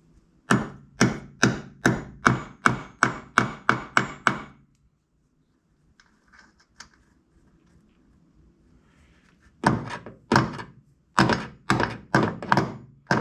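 Hammer blows swapping the bushings in a GM door hinge: a run of about ten sharp, evenly spaced strikes, a little over two a second, then a pause of about five seconds, and a second run of strikes near the end.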